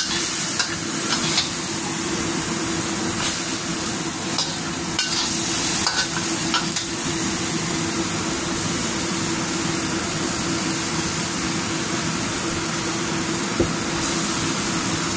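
Chicken thighs sizzling in chili paste in a wok while a metal spatula stirs and turns them. The spatula scrapes and clicks against the pan, mostly in the first half. A steady low hum runs underneath.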